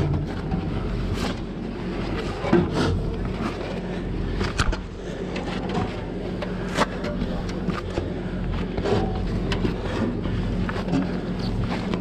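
Steady low hum of the aerial ladder truck's engine running, with irregular knocks and clicks as gloved hands and boots strike the ladder rungs while climbing down.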